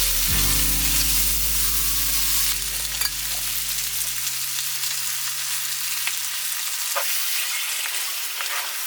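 Food frying with a steady sizzle, with a few sharp clicks. The last chord of background music fades out over the first half.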